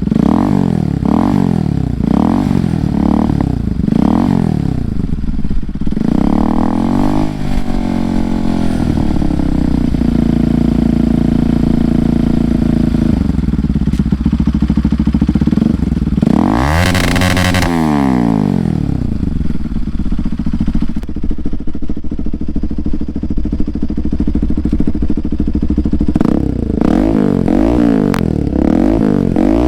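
Bajaj Pulsar NS200's single-cylinder engine through an aftermarket Akrapovic exhaust, revved in a string of quick blips. It then settles to an idle, broken by one longer, higher rev about halfway through, and goes back to quick blips near the end.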